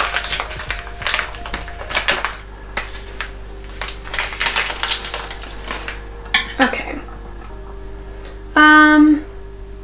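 Small packet of dried dill being torn open and handled: a quick run of crinkly crackles and clicks in the first two seconds, then quieter rustles, over soft background music. A brief loud pitched sound comes near the end.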